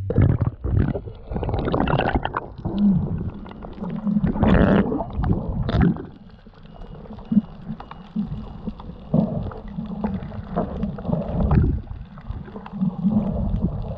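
Sea water heard underwater through an action camera's waterproof housing: a splash as it goes in, then several seconds of loud churning water and bubbles, then quieter muffled gurgling and rushing with scattered pops.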